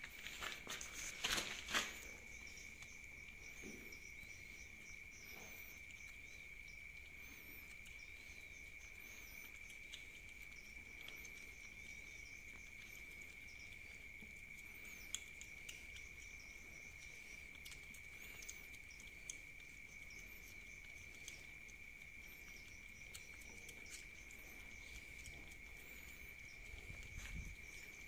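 Steady high-pitched trill of night insects, with faint scattered clicks and licking sounds from several cats eating wet cat food out of a hand-held pouch. A short burst of louder crinkling clicks comes about a second in.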